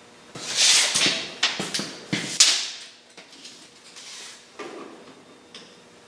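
Steel tape measure being pulled out and worked along a truck frame: a hissing, rattling blade with several sharp clicks and knocks in the first couple of seconds, then quieter handling noises.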